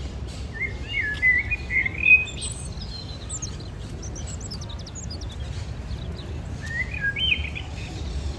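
Birds calling: a wavering call about a second in, then a quick run of short high chirps, and another call near the end, over a steady low rumble.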